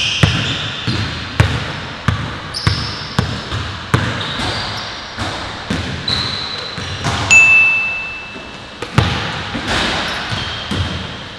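Basketballs bouncing on an indoor gym court, irregular thuds with an echoing tail in the large hall, mixed with short high sneaker squeaks, one held for over a second about seven seconds in.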